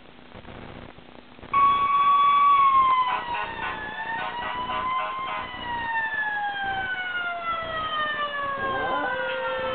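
Fire truck siren played back from a video through computer speakers, starting suddenly about a second and a half in: a long wail that falls slowly in pitch, with a stretch of rapid pulsing early on. Near the end a second steady held tone joins it.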